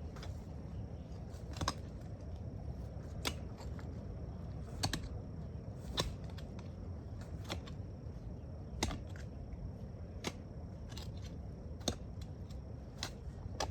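Sharp strikes of a hand digging tool into the ground, about one every second and a half, over a steady low rumble.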